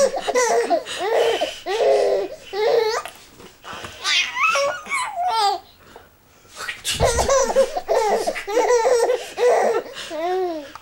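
A baby laughing hard in repeated bouts of belly laughter, with a short pause about six seconds in before the laughing starts again.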